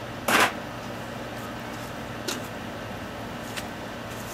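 A short, sharp metal scrape-clank from handling the rocket stove, about half a second in, then two faint clicks. A faint steady hum runs underneath.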